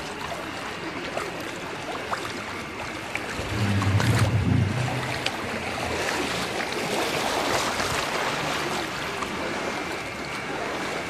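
Floodwater sloshing and splashing in a flooded street as someone moves through it: a steady rush of water noise, with a low rumble about four seconds in.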